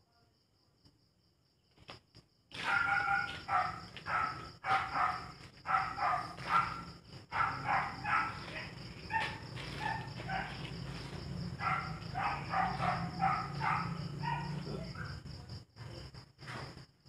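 A dog barking over and over, starting a couple of seconds in and stopping near the end, over the steady chirring of crickets.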